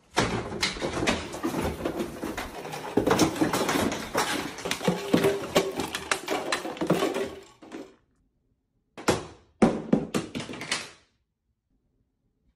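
Kitchen items clattering and crashing down from pantry shelves: many knocks and bangs in quick succession for about eight seconds. After a pause come two shorter bursts of clattering, about nine and ten seconds in.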